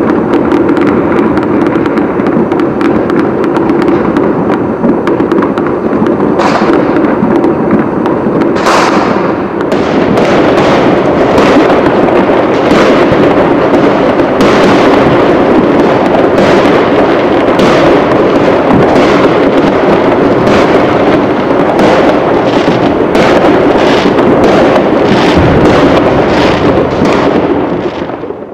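Fireworks and firecrackers going off all around in a continuous racket, with many sharp bangs overlapping, more frequent from about nine seconds in, then fading out at the very end.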